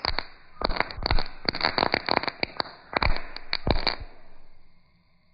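Small lit crackle sticks burning on a concrete floor, giving off a rapid, uneven run of sharp crackles and pops that stop about four seconds in.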